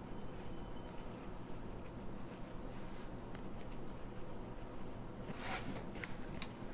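Faint rustling and light ticks of a crochet hook drawing yarn through stitches over a steady low hum, with a louder rustle about five and a half seconds in.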